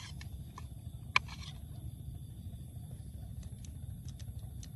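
Light clicks and taps of a metal slotted spoon spreading cooked chicken pieces onto a paratha, with one sharp click about a second in, over a steady low background rumble.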